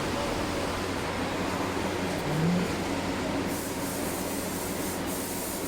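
Steady machinery hum in a workshop, with a constant low electrical tone beneath it and a brief faint rising sound about two seconds in.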